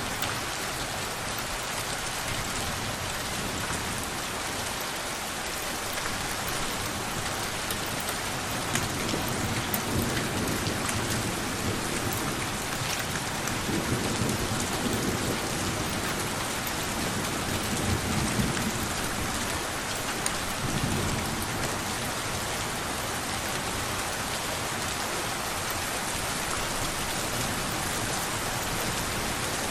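Steady rain falling, an even hiss of many drops on surfaces. Low, soft rumbles of distant thunder swell and fade a few times through the middle.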